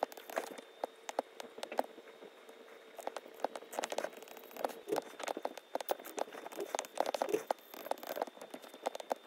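Apple Pencil's plastic tip tapping and clicking on an iPad's glass screen during handwriting, in quick irregular taps over a faint steady hum.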